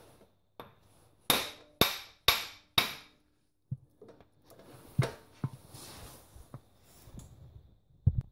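A new CV joint being knocked onto the splined end of a driveshaft: four sharp metallic knocks about half a second apart, each ringing briefly, then a few lighter knocks. A zip tie around the joint's retaining clip holds the clip compressed so that it slips over the spline.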